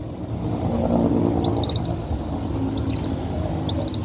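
Birds chirping: short high chirps in quick clusters, about one cluster a second, over a low steady drone.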